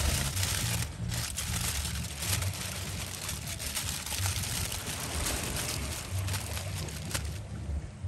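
Aluminium foil crinkling and rustling as hands fold and press it around a fish, easing off near the end, over a low steady rumble.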